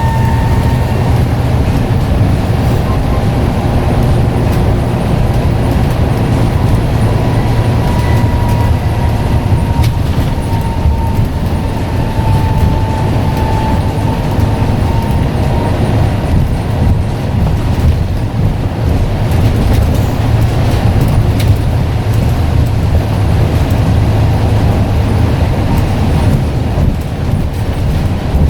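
Scania N94UD double-decker bus's diesel engine running under way as a steady low drone. A thin turbocharger whistle sounds over it at the start and comes back fainter a few seconds later, sliding slightly lower in pitch.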